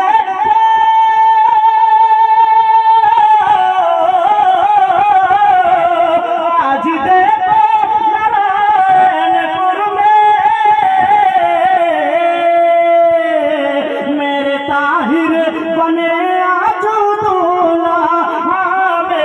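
A man singing a naat into a microphone over a PA. He holds one long steady note for the first few seconds, then sings a long wavering, ornamented line that slides gradually lower in pitch.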